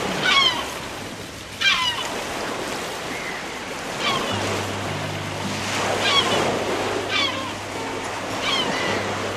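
Gulls calling, a series of sharp falling cries every second or two, over a steady wash of sea surf. Low held music notes come in about four seconds in.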